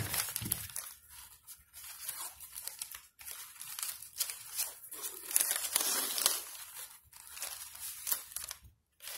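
Green masking tape being pulled off the roll and torn in short rasping strips, mixed with crumpled newspaper crinkling as it is pressed and taped down, in irregular bursts with short pauses.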